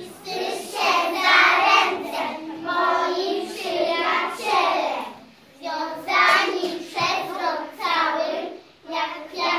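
A group of young children singing together in unison, in phrases with short breaks about five and nine seconds in.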